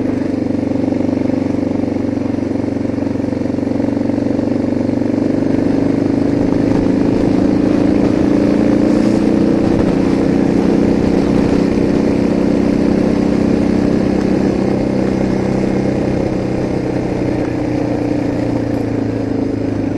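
Suzuki DR650's single-cylinder engine running under way at a steady pace, picked up by a cheap dictaphone microphone on the bike. The engine note rises a little in the middle and eases back toward the end.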